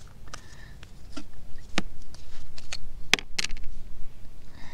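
Scattered sharp plastic clicks and snaps, about eight in all and loudest a little after three seconds in, as the plastic cap and fittings of a tube of camper-van adhesive are worked off by hand.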